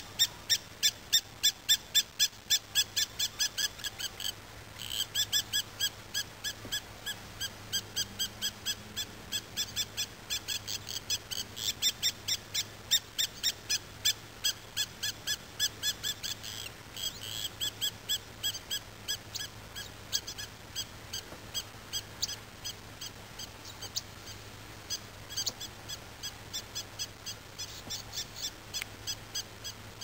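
Short, high calls repeated rapidly and evenly, about four or five a second, with a few short breaks.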